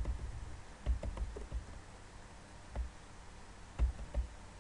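Computer keyboard keystrokes typed a few at a time with short pauses between.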